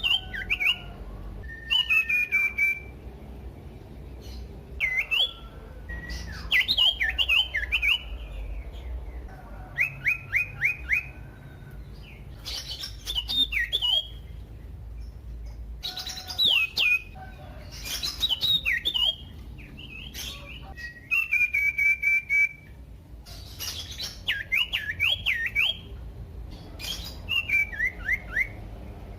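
Common iora singing: about a dozen short phrases of clear whistled notes, many sweeping down or up and down, each followed by a pause of a second or two. A steady low hum lies underneath.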